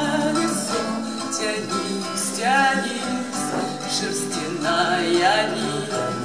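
A woman singing to acoustic guitar accompaniment, with long wavering held notes about two and a half seconds in and again near the end.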